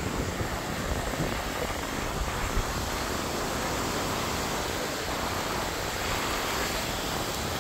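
Small surf waves breaking and washing up the sand in a steady rush, with wind buffeting the microphone.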